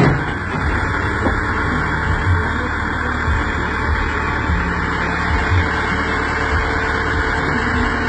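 JCB backhoe loader's diesel engine running steadily at low revs.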